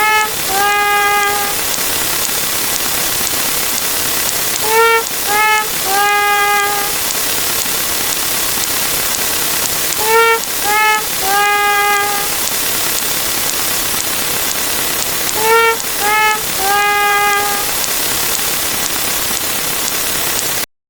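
Sad trumpet sound effect, a descending 'wah-wah-waah' of three falling notes with the last held, played four times at even intervals over a steady loud hiss. It cuts off suddenly near the end.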